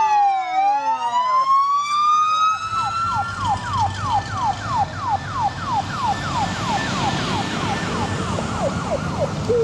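Emergency vehicle electronic sirens: a slow wail rising for about three seconds, then switching to a fast yelp of about three falling sweeps a second. A low vehicle rumble runs underneath.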